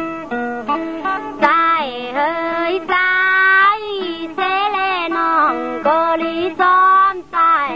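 Tai Lue khap singing: a high voice drawing out long ornamented phrases, sliding and bending in pitch, with brief breaths between phrases.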